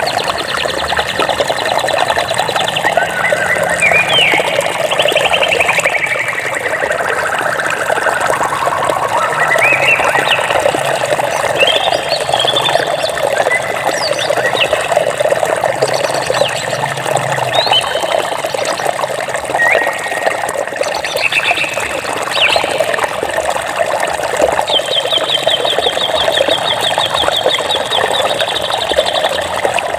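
A stream of water running steadily, with songbirds singing over it: scattered chirps, rising whistled notes and trills, and a long even trill near the end.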